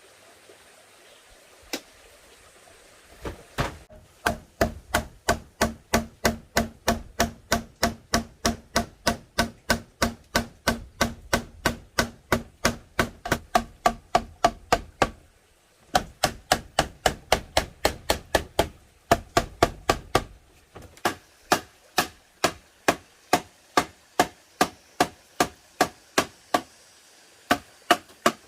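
A hand tool striking bamboo over and over, in an even run of about three strikes a second, with a short break about halfway through; the strikes get lighter and sparser near the end.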